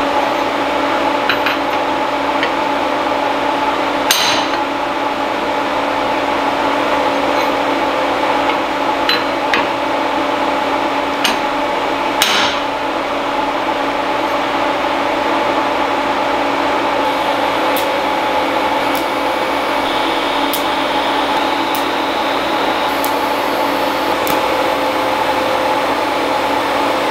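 A steady hum of several held pitches, with a few sharp metal knocks, the biggest about 4 and 12 seconds in, as steel tubing and clamps are handled on a steel welding table.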